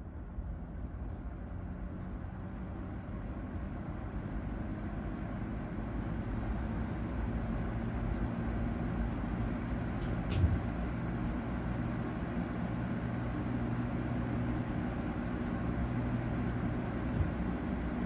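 1991 Eastern Electric 20-inch box fan (a rebadged Lasko 3723 with a three-speed Marco motor) running, its rush of air building over the first several seconds as it picks up speed, then holding steady over a low motor hum. A sharp click comes about ten seconds in and a smaller one near the end.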